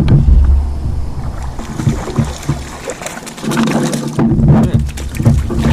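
A bass being landed into a kayak: irregular knocks and water noise against the hull, over a heavy low rumble of wind or handling on the microphone that comes in twice.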